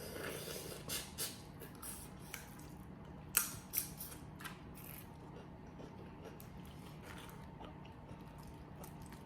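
Boiled crawfish shells being snapped and peeled by hand: a run of short crackles and snaps, the loudest about three and a half seconds in.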